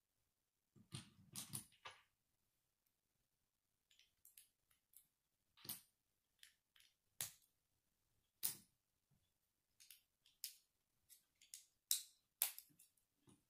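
Plastic Lego bricks clicking and snapping together as a small model car is put together by hand. It comes as scattered sharp clicks, with a short burst of handling rustle about a second in.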